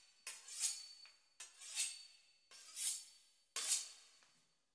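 Knife sawing back and forth through the crisp pastry crust of a beef Wellington: four strokes about a second apart, each starting sharply and fading away.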